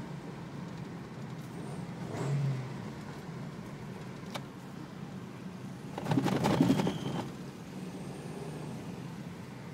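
Toyota Rush with a whistler exhaust tip, its engine running with a steady low note. About six seconds in comes a short, louder burst, and a brief high whistle follows it.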